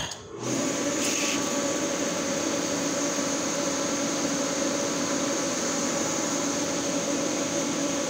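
Cheap TIG-welder water cooler switched on about half a second in, then running with a steady hum and a high whine as it pumps coolant through the induction forge's coil lines and quick-connect fittings, which are holding without leaks.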